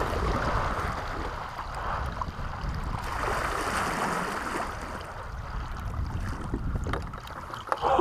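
Kayak being paddled across a calm river: paddle strokes and water washing along the hull, steady throughout, with a low rumble of wind on the microphone.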